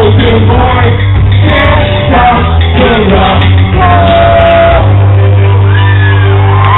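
Loud live rock band playing with sung vocals. A chord is held through the last two seconds.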